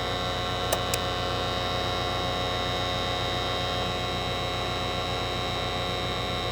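Steady machine hum with a fast, even pulsing underneath, and two short clicks a little under a second in.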